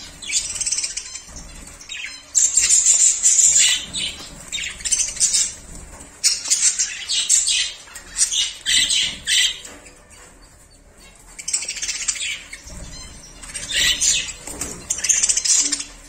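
A flock of budgerigars chattering and chirping in loud, high-pitched bouts of a second or so, about eight of them, with short quieter gaps between.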